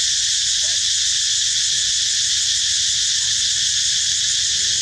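Loud, steady chorus of insects droning without a break, with a few faint short chirping calls over it.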